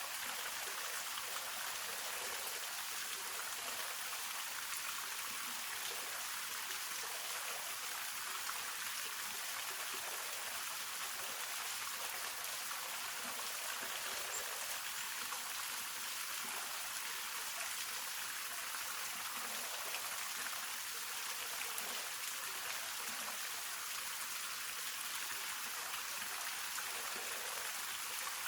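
Hongryu Falls waterfall: a steady, even rush of falling water, mostly high hiss with little low rumble.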